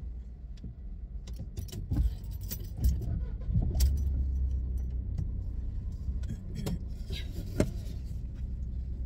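Keys jangling, with scattered sharp clicks and knocks inside a parked car, over a steady low rumble that grows louder about four seconds in.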